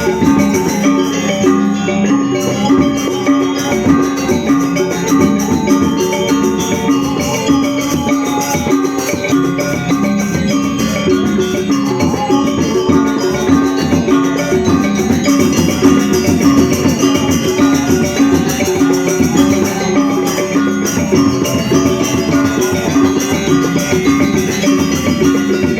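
Balinese gamelan playing: bronze metallophones and gongs struck in a dense, continuous stream of notes over drums.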